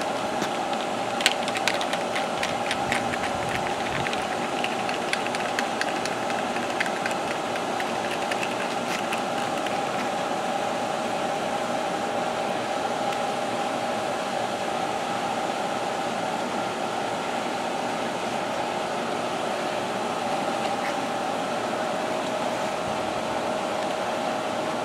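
Light clicks and clacks of plastic toy workbench parts being handled and fitted together, thick in the first ten seconds or so and then dying away, over a steady machine hum like an air-conditioning unit or fan.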